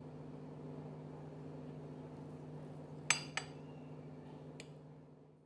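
A metal fork clinks against a porcelain plate as it cuts down through a piece of moist cake: two quick clinks about three seconds in, then a lighter one a second later, each ringing briefly. A steady low hum runs underneath.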